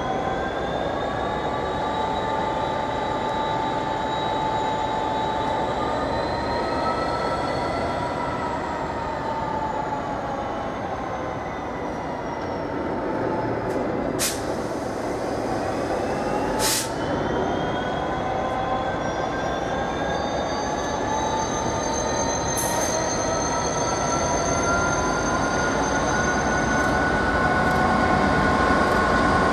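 A train running on the rails, with several high whining tones that drift slowly up and down in pitch over the rolling noise. Two sharp clicks come about two and a half seconds apart near the middle.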